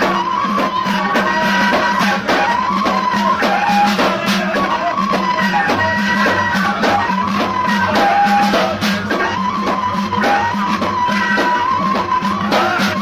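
Alaoui (reggada) folk music: bendir frame drums beating a steady rhythm under a wavering gasba reed-flute melody, over a steady low drone.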